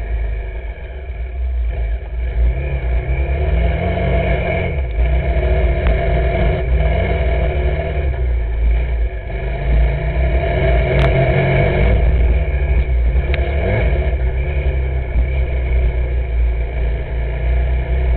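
A vehicle's engine running while driving, heard from an onboard camera, with a heavy low rumble underneath. The engine pitch steps up and down a few times. There is a sharp click about eleven seconds in.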